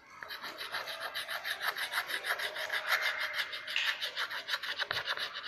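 White chalk scraping on a blackboard in quick back-and-forth shading strokes, a rapid, even rasping rhythm as an eye is filled in.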